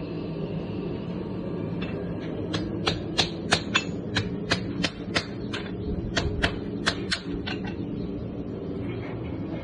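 Farrier's hammer striking an aluminum horseshoe on a steel anvil: a run of about fifteen sharp blows, roughly three a second, starting a couple of seconds in and stopping near the end. A steady machine hum sits underneath.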